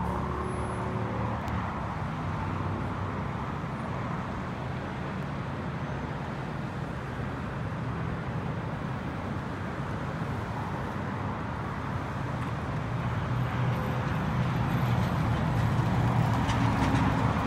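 Road traffic noise from nearby streets and a freeway: a steady wash of passing vehicles with a low engine hum underneath, growing louder over the last few seconds as a vehicle comes closer.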